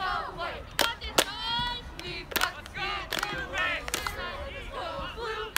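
Several voices shouting and calling over one another, with a few sharp claps scattered through.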